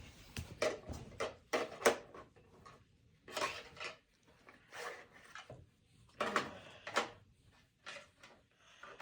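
Plastic toy parts and packaging being handled and fitted together: scattered light clicks and knocks with a few short rustles.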